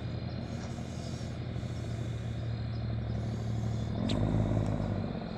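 Pickup truck engine running with a steady low drone; about four seconds in it drops in pitch and grows louder.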